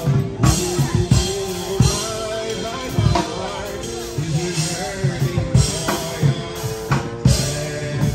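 Music with a steady drum-kit beat and bass, with singing over it.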